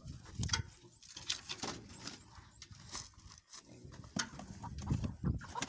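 Irregular rustles and light knocks as chickens are handled out of a cardboard box: a bird's wings flapping and the cardboard being scraped and shifted as hands reach in.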